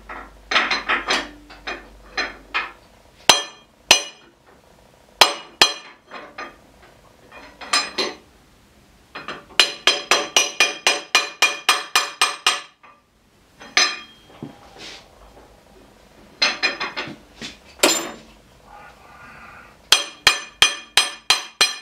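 Hammer striking the end of a lathe headstock spindle to drive out the worn outboard spindle bearing: sharp metallic knocks, some single and some in quick runs of about four or five blows a second.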